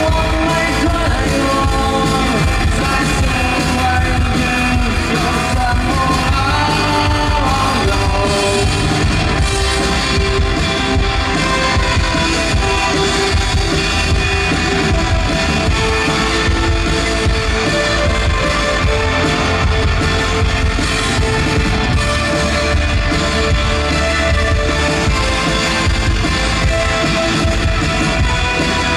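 Live rock band playing: drum kit and guitar, with singing.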